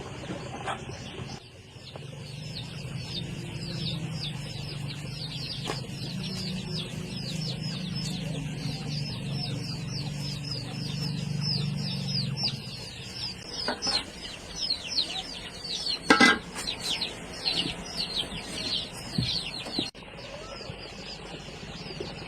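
Many chicks peeping together, a rapid stream of high, downward-sliding peeps. A low hum runs under the first half, and a single sharp knock comes about two-thirds of the way through.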